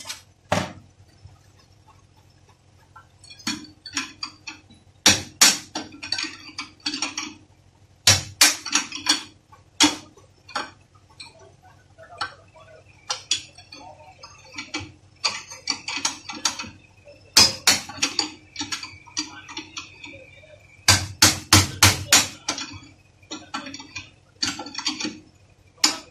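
Hammer striking a long steel drift held in the bore of a steering rack housing clamped in a bench vise: sharp metallic clanks in quick bursts of several blows, with a ringing note after some of them.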